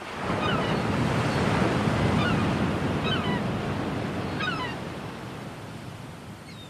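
Ocean surf: a wave swells in at the start and slowly washes back out, with gulls crying several times over it, as the recorded opening of a song.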